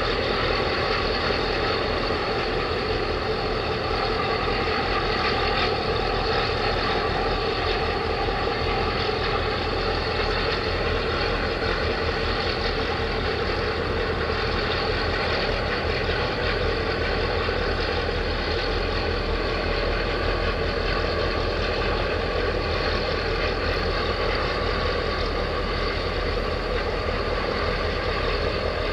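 Steady drone of heavy diesel engines, unchanging, with a deep rumble and a constant hum over it.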